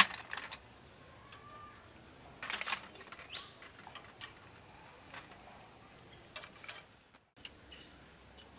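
Snail shells being set down on a wire grill, with scattered light clicks and a short clatter a few seconds in. Occasional bird chirps sound in the background.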